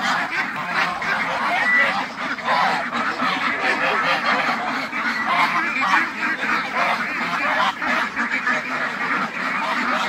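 A flock of domestic ducks and geese quacking and honking, many calls overlapping in a continuous din.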